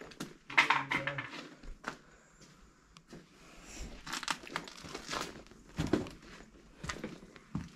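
Footsteps crunching and crackling over fallen ceiling tiles and debris on a floor, irregular steps about once a second.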